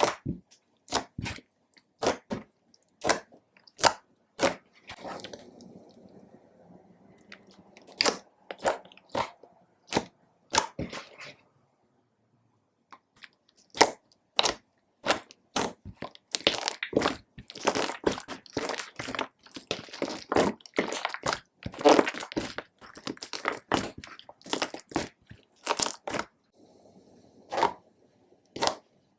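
Slime being squished and mixed, making a dense, irregular run of sharp wet clicks, pops and crackles from trapped air, with a brief pause about twelve seconds in.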